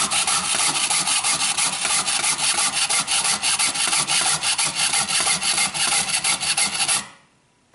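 Jeweler's saw blade cutting through a workpiece held in a saw vise, in quick, even back-and-forth strokes that stop abruptly about seven seconds in.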